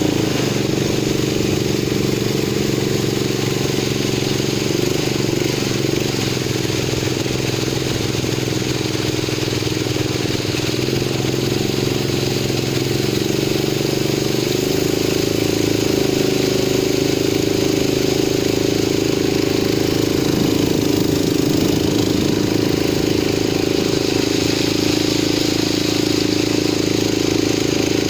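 Longtail boat engine running steadily under way, its pitch shifting slightly now and then.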